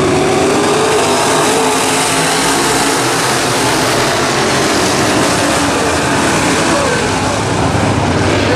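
Race car engines running on the track, loud and steady, with the engine pitch drifting up and down.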